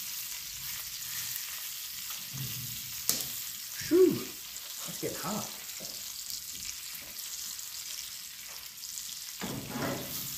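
Steaks with butter and hot dogs sizzling in cast iron skillets on the top of a wood-fired cook stove, a steady hiss. A few short knocks and scrapes of tongs and pan on the iron, the loudest about four seconds in.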